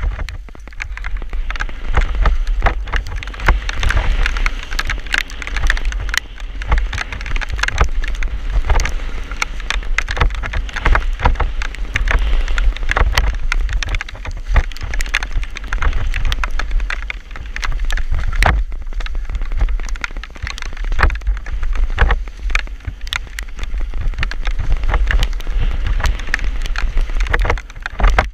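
Mountain bike ridden fast down a wet gravel trail, heard on a bike-mounted action camera: a constant wind rumble on the microphone under a dense, irregular clatter of clicks and rattles from the bike and its tyres on the stones.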